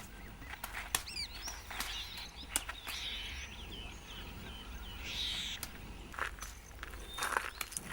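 Outdoor bird ambience: many short chirps and whistling calls from several birds, over a steady low background rumble, with a few sharp clicks scattered through it.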